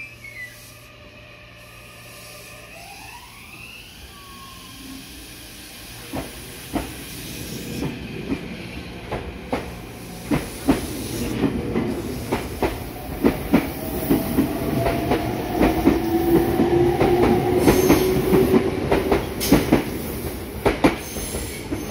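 Meitetsu 9100-series electric train pulling out and accelerating past, growing steadily louder. The wheel clicks over the rail joints come faster and faster, and the traction motors' whine rises in pitch as it gathers speed.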